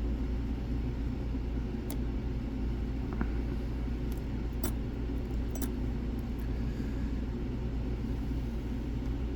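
A steady low hum runs throughout, with a few faint, sharp clicks of a lock pick setting pins in a Trioving six-pin lock with trampoline drivers; the pins keep setting and dropping back.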